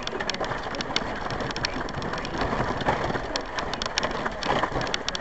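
Noise inside a 4x4 driving slowly along a rough, muddy lane: a steady rush with many sharp clicks and rattles scattered through it.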